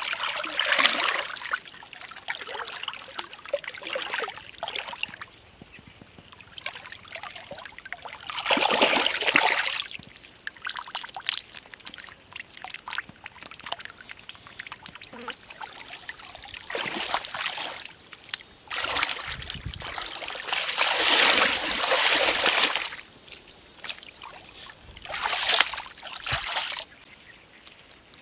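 Hands sloshing and scooping through shallow muddy water, with splashes and water trickling off the hands. It comes in separate bursts a few seconds apart, with the longest and loudest in the middle and latter part.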